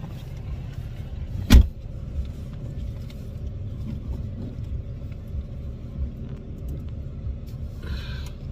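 A car door slammed shut once, about a second and a half in, over the low, steady sound of the car's engine idling, heard from inside the cabin.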